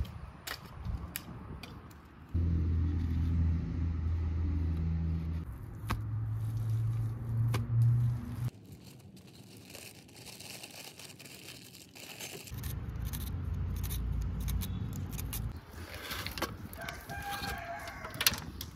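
Village chickens: hens clucking and a rooster crowing near the end. Two long stretches of low, steady droning are the loudest sounds.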